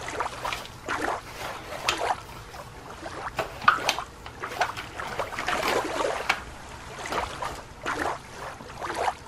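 Plastic toy lobster's claws digging and scooping through play sand: a run of irregular gritty scrapes and rustles.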